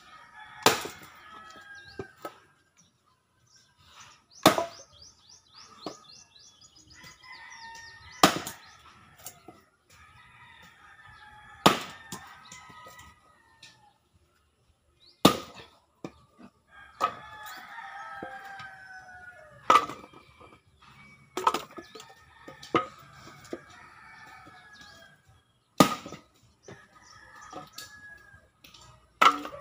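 Axe splitting firewood on a chopping block: about eleven sharp chops, one every two to four seconds, each with a short crack of the wood giving way.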